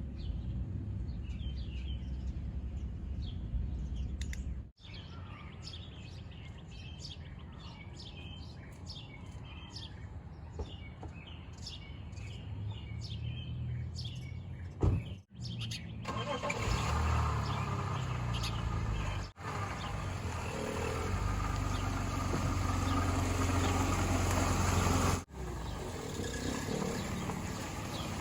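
Birds chirping over a low steady rumble; about halfway through, a sharp knock gives way to a louder, steady rushing noise with a deep rumble, which cuts out shortly before the end.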